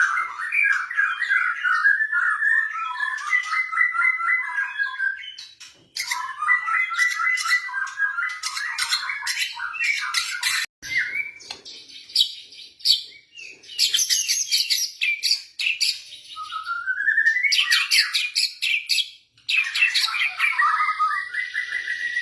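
White-rumped shama (murai batu) singing in long runs of rapid, varied chattering and whistled notes, with short breaks about six and nineteen seconds in and a rising whistle shortly before the second break.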